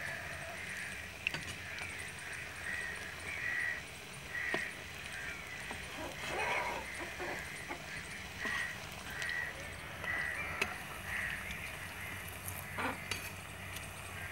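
Hot oil sizzling as lachha pakoras deep-fry in an iron karahi, with occasional sharp clicks of a metal slotted spoon against the pan. Birds call repeatedly with short calls in the background.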